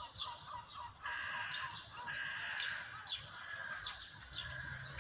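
Crows cawing repeatedly, with short high calls in between.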